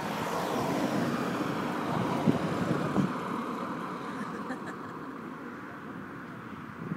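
A road vehicle going past, its noise growing over the first three seconds and then fading away.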